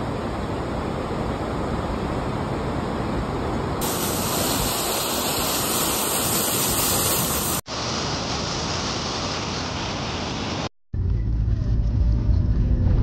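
Steady rushing of a waterfall, an even hiss that changes abruptly a few times as short clips are cut together. About two seconds before the end it gives way to the low rumble of a car cabin on the move.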